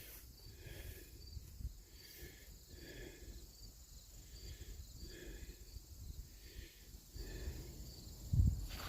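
Faint chirping repeated about once every three-quarters of a second, over a low outdoor rumble.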